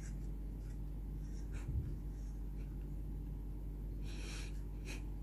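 Quiet room with a steady low hum and faint handling sounds from hands holding a small plastic mouse and USB receiver: a soft knock about two seconds in, then a short hiss and a light click near the end.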